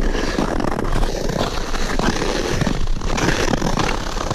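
Ice skate blades scraping and gliding over snow-covered lake ice, with irregular strokes as the skater pushes along.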